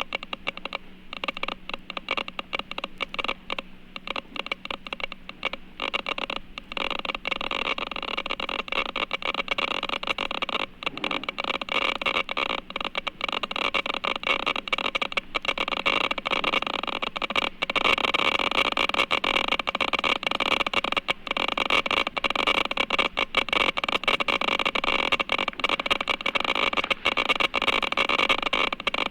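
European police car siren, with the car's running sound beneath it, growing louder about a quarter of the way in and again past the middle as the car approaches, then cutting off sharply. It is an old 1960s sound-effects record with a muffled top end.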